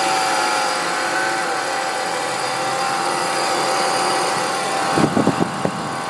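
BMW E46 325's straight-six engine idling with a steady whine on top, which dips slightly in pitch about a second and a half in. The owner suspects the whine comes from an idler pulley. A few soft knocks near the end.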